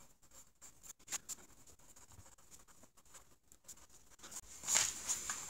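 Mechanical pencil lead scratching on a lined paper pad while an equation is written out in many short, faint strokes. The scratching grows louder near the end.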